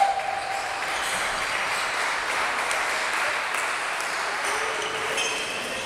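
Busy badminton hall between rallies: a steady din of chatter and play from the neighbouring courts, with no clear shuttle hits.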